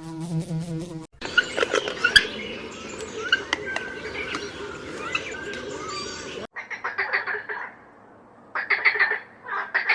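A buzzing insect cuts off about a second in, followed by a few seconds of mixed chirps and calls. From about six and a half seconds comes a series of short, harsh, rapidly pulsed animal calls.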